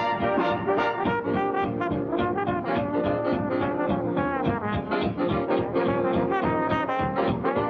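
Swing big band playing a boogie-woogie number, brass and saxophones to the fore over a steady beat. The recording is an old film soundtrack with no top end.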